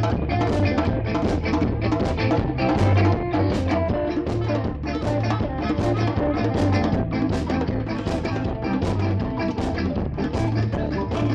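Live band playing with guitar, bass and drum kit at a steady beat, recorded with poor sound quality.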